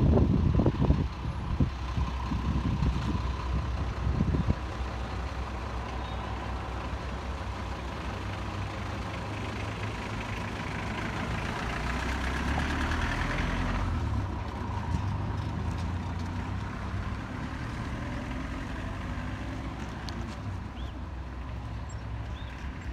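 Town street traffic: a steady low vehicle engine rumble, heavier in the first few seconds, with a hiss that builds and then cuts off suddenly about fourteen seconds in.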